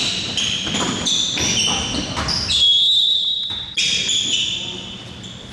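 Basketball shoes squeaking in quick short chirps on a gym floor and a basketball bouncing during play. One longer high squeal is held for about a second halfway through.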